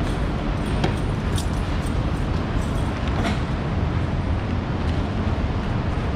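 A steady low rumbling noise with a few faint sharp clicks in the first half.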